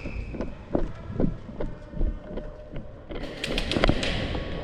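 Footsteps and gear rustling of a player walking, thumps about every half second with small clicks. A louder stretch of rustling with sharp clicks comes about three seconds in.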